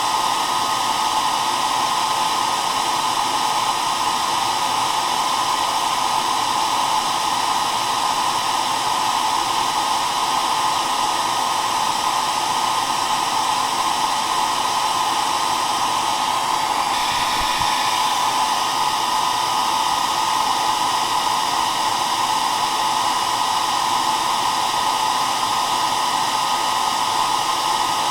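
Hair dryer running steadily: a continuous rush of blown air with a constant tone from its motor. Its tone shifts briefly about 17 seconds in.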